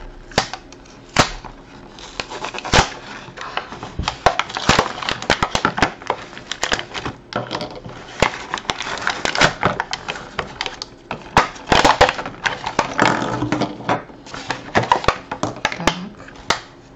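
Thin plastic blister packaging crackling and snapping as it is pulled open by hand and the toys are worked out of it, a quick run of sharp cracks and crinkles.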